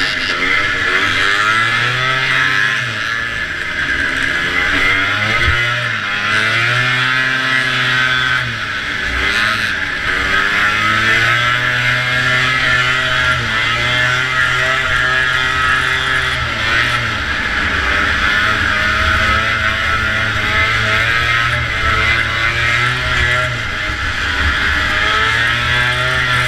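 Vintage racing snowmobile's two-stroke engine running hard, its pitch rising and falling again and again with the throttle, over a steady high hiss of wind and track noise.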